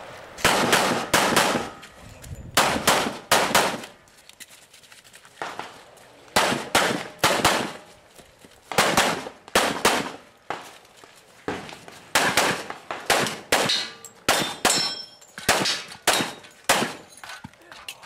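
Semi-automatic pistol firing a fast course of fire: sharp shots mostly in quick pairs about a third of a second apart, in bursts of two to four with short gaps between them.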